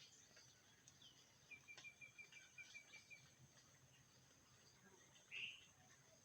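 Faint outdoor ambience of birds and insects: a quick trill of about ten short, evenly spaced notes about a second and a half in, a louder single chirp near the end, and a steady high insect hum underneath.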